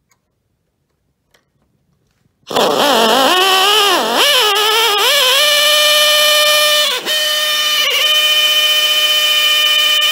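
An electric or air drill starts about two and a half seconds in, spinning the oil pump of a 1963 Oldsmobile Jetfire V8 through a chisel bit to prime the oil system. Its whine wavers in pitch for the first few seconds, then holds steady, dipping briefly twice. The chisel is not centred in the pump, so the drill shakes as it turns.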